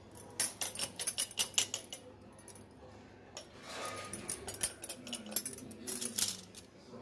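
Scattered short clicks and taps of fingers pressing the folded edges of a dough pastry shut against a granite countertop, in quick clusters about a second in and again in the middle.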